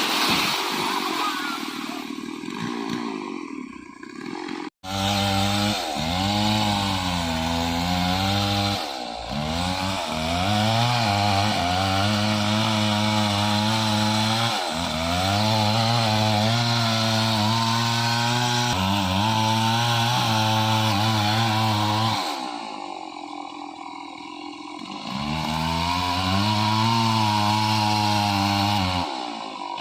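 Two-stroke chainsaw running at high revs and cutting, its pitch sagging and recovering as the chain bites in. It eases off to a lower, quieter running for a few seconds about two-thirds of the way through, then revs up again. The first few seconds, before a sudden break, are a rougher, less even run.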